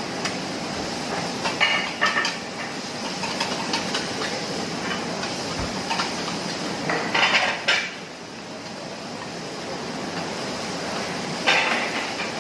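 Metal spatulas clanking and scraping on a teppanyaki griddle in three short bursts, over a steady hiss.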